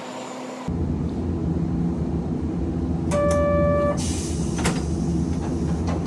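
Hankai Tramway streetcar running, a steady low rumble that starts abruptly about a second in. A single held tone sounds for under a second near the middle.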